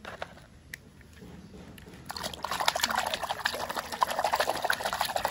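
A hand splashing and swishing through a plastic tub of muddy water, washing a toy, starting about two seconds in. Before that, a couple of light clicks.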